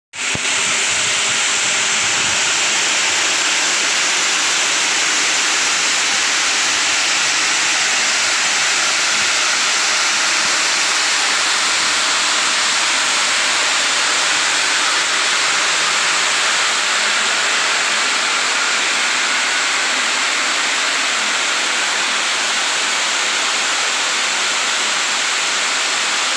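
Grain-cleaning machine running with dry beans draining through its hopper and pouring down its metal chute: a loud, steady rushing hiss that starts abruptly.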